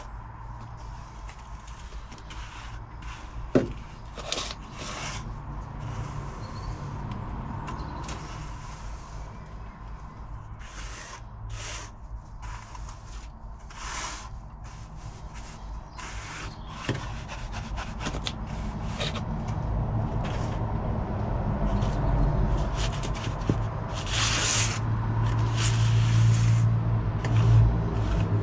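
Building sand being scraped and spread over a bench, a run of short gritty scrapes at irregular intervals. A low rumble grows louder through the last third.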